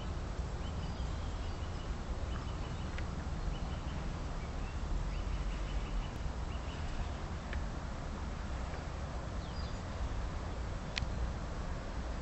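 A steady low rumbling noise with small birds chirping now and then, and a few faint clicks.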